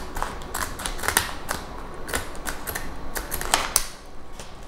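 Scissors cutting paper: a series of irregular, crisp snips with light paper rustling.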